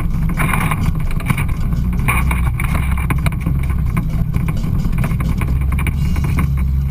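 Side-by-side off-road vehicle engine running steadily as it drives a rough trail, with frequent short knocks and rattles over the rumble.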